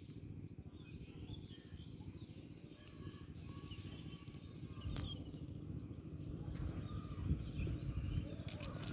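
Quiet outdoor background: a low steady rumble with faint, scattered bird chirps, and a single sharp click about five seconds in.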